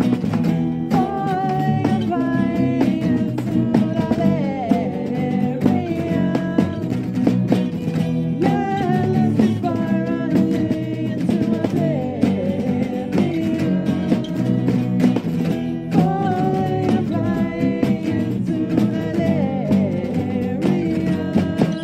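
Acoustic band playing live: strummed acoustic guitars keeping a steady rhythm, with a melody line gliding above the chords.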